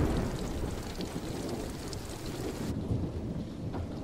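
Heavy rain with a long rumble of thunder, loudest at the start and slowly fading. About two-thirds of the way through, the rain's hiss cuts off and a low rumble carries on.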